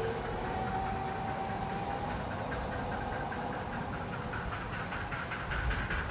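Miniature railway locomotive approaching along the track: a steady low running rumble, with a quick even beat of about five a second coming up and growing slightly louder near the end.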